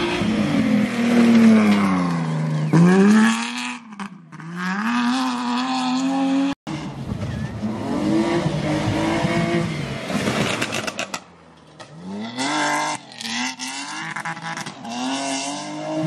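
Rally cars at full throttle on a gravel stage: a BMW E30 engine revs up, drops in pitch at each gear change and climbs again as the car comes through. After a sudden cut a BMW 325 iX does the same, quieter for a moment before its revs climb again near the end.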